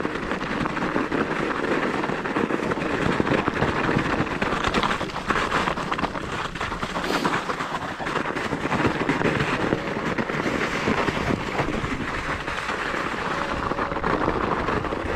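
Knobby mountain-bike tyres crunching and crackling continuously over packed, rutted snow on a descent, with the bike rattling over the bumps.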